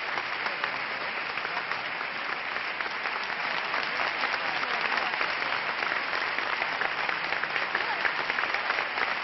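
Audience applauding: a large crowd clapping steadily.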